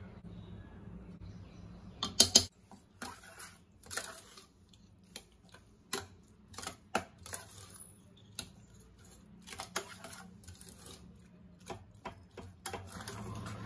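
Steel spoon stirring thick cooked black rice in a stainless steel pressure cooker, clinking and scraping against the pot's side and bottom in irregular knocks, the loudest cluster about two seconds in.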